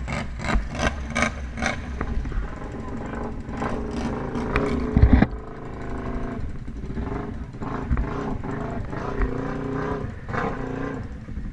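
Off-road vehicle engines running and revving as a Polaris RZR side-by-side and ATVs churn through a deep mud hole, with a loud thump about five seconds in.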